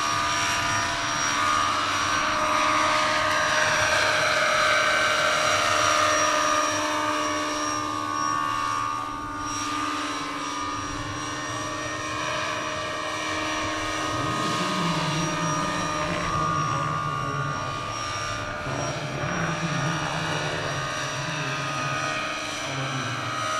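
Large-scale radio-controlled model helicopter of an AgustaWestland EH101 flying, its rotors and drive making a steady, loud whine. The pitch falls as it passes a few seconds in, and a lower buzz joins about halfway through.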